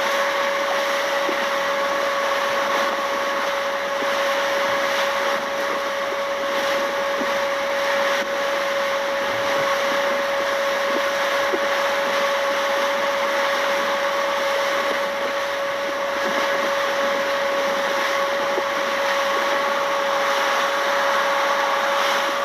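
A motor running steadily, giving one constant whine over a wide hiss.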